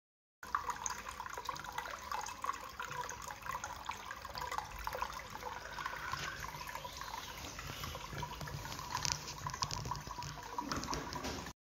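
Small ceramic tabletop water fountain running: water trickling from a spout and splashing into the basin, a steady stream of small splashes.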